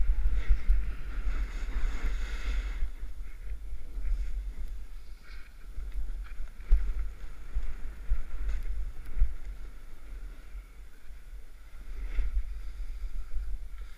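Snowboard sliding and carving through soft snow: a scraping hiss, strongest in the first few seconds, with a few soft knocks. Under it runs a constant low rumble of wind buffeting the camera's microphone.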